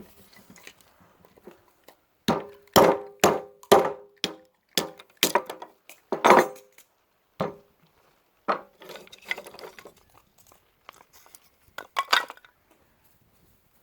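A steel C-clamp hammering the spine of a homemade knife made from a sawmill saw blade, batoning it through a dry piece of cedar. Metal-on-metal clinks with a short ring come in a run of about nine quick blows, then a few scattered knocks and a last strike near the end.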